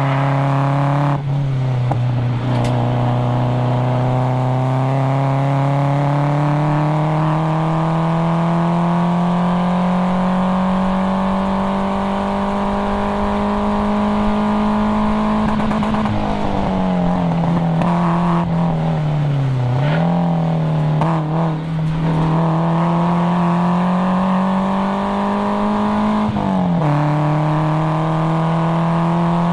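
Nissan 240SX's KA24DE inline-four engine running hard on track, its pitch climbing slowly and steadily through the gears, with a sharp drop at an upshift about a second in and another near the end. In the middle the pitch sags and wavers briefly as the throttle comes off and on.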